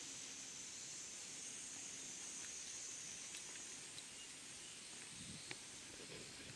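Faint steady high-pitched shrilling of insects in the countryside, fading after about four seconds, with a few faint clicks and thuds near the end.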